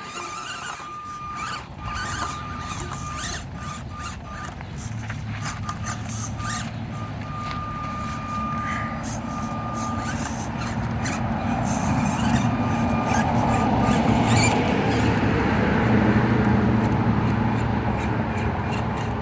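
Small electric motor of an Axial SCX24 Deadbolt 1/24-scale RC crawler whining in short on-off bursts of throttle as it climbs rock, with many sharp clicks and knocks. A low hum and noise build up through the second half.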